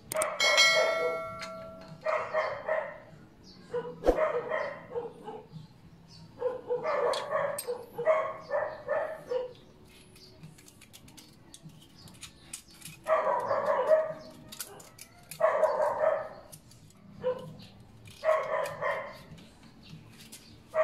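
Dogs barking in repeated bouts. There is a short metallic ring near the start and a sharp click about four seconds in.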